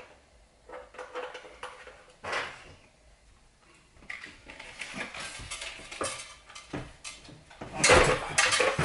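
Small metal clinks, clicks and rattles as the clutch shroud is fitted over a Predator 212cc engine's variable clutch and its bolts are started by hand and with a small wrench, with a heavier clatter of knocks near the end as the engine is tipped onto its side on the table.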